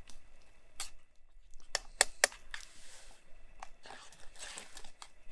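A few sharp clicks, three in quick succession about two seconds in, with crinkling and rustling between them, from handling a camp pot and food packaging while eating.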